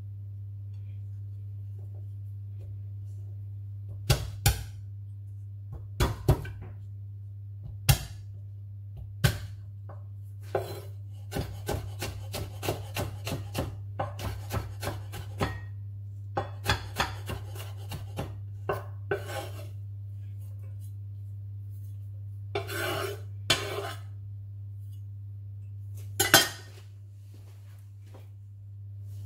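Chef's knife chopping garlic on a wooden cutting board: a few separate knocks, then a run of quicker chops at about two or three a second, with a louder clatter near the end.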